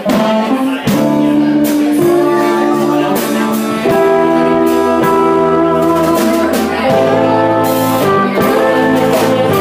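Live band playing: saxophone, electric guitars and keyboard together, with long held notes.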